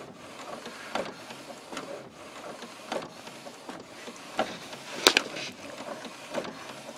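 Canon Pro-10 inkjet printer printing a sheet, running smooth and quiet: a steady whir from the print carriage and paper feed, with light clicks every second or so, the sharpest about five seconds in.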